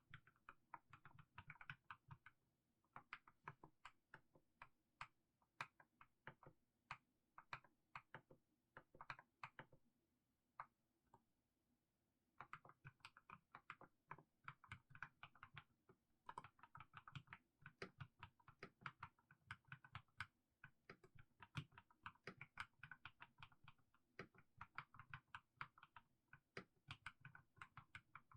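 Slow typing on a mechanical keyboard with fully lubed Haimu Sea Salt switches: a steady run of separate keystrokes, with the typing thinning to a few scattered keys about ten seconds in before picking up again.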